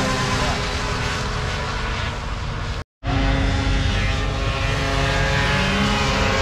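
Drag-race snowmobiles running flat out down the strip, a loud, steady engine whine made of several overlapping pitches. The sound cuts out completely for a split second about three seconds in, then another run picks up.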